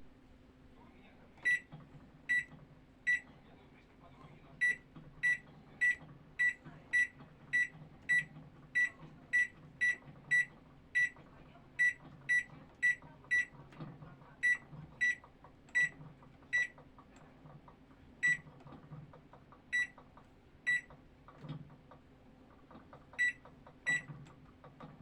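Microwave oven's control panel beeping: about thirty short, high electronic beeps at uneven intervals, in quick runs with pauses between, like keys being pressed one after another. A faint steady low hum lies underneath.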